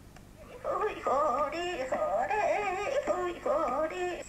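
A recorded voice message in Japanese played back from a small portable cassette recorder, starting just under a second in, in a sing-song voice whose pitch swoops up and down.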